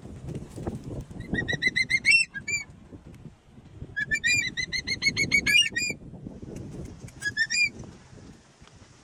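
Hawk-eagle calling in three bouts of rapid, shrill whistled notes, each note rising at its end, with wings flapping and rustling underneath.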